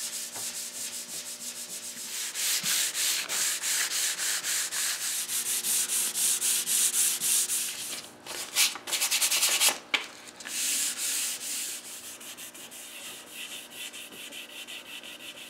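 Hand sanding a varnished mahogany table leaf with 320-grit sandpaper, knocking down the first coat of varnish between coats: quick back-and-forth rubbing strokes. They are harder and more uneven a little past the middle and lighter near the end.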